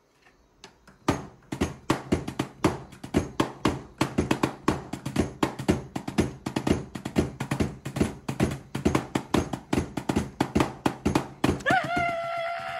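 Drumsticks striking the mesh pads of a Roland V-Drums electronic kit in a fast, busy run of strokes, several a second. Near the end a person lets out a high, wavering shriek of frustration.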